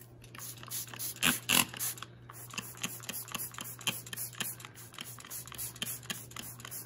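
Trigger spray bottle of Folex carpet spot remover being pumped onto carpet stains: a rapid run of short spritzes, a few harder squirts in the first two seconds, then about three a second.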